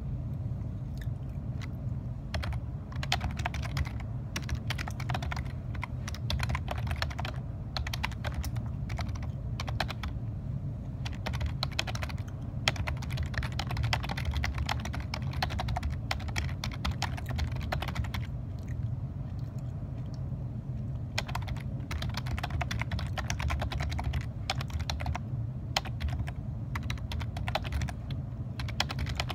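Typing on a computer keyboard: runs of quick key clicks, thinning out for a few seconds past the middle before picking up again, over a steady low hum.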